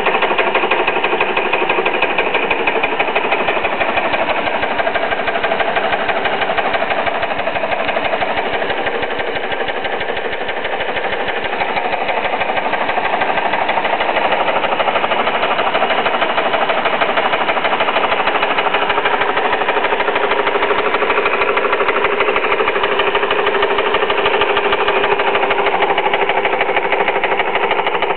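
Homemade outboard steam engine running steadily under load, driving its propeller in a barrel of water, with a rapid, even beat of strokes.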